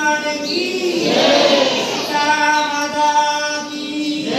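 Voices singing a devotional chant in long, steady held notes: one ends just under a second in, and another is held from about two seconds in for nearly two seconds, with a busier, noisier stretch between them.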